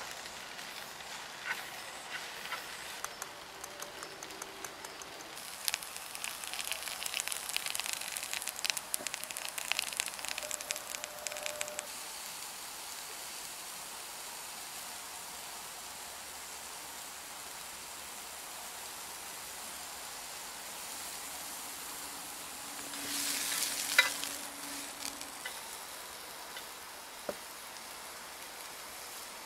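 Food sizzling on a grill pan over a portable butane stove: a steady hiss, with louder spells of crackling and spitting about six to twelve seconds in and again briefly around twenty-three seconds.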